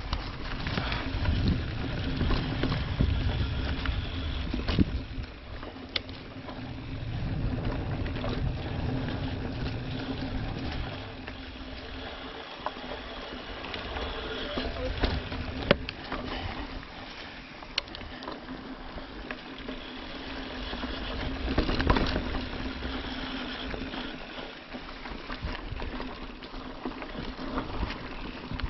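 Mountain bike riding noise on a dirt trail: wind buffeting the microphone and tyre and frame rumble, heaviest in the first ten seconds or so and again a little past the middle, with several sharp knocks.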